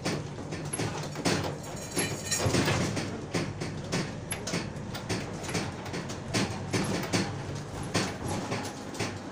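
Cargo rattling and clanking in the back of a moving van, with many irregular knocks over the low rumble of the ride.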